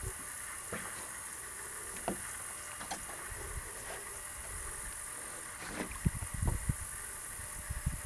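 Evening marsh ambience: a steady, high-pitched chorus of insects. Low rumbling noise on the microphone comes and goes, growing stronger about six seconds in.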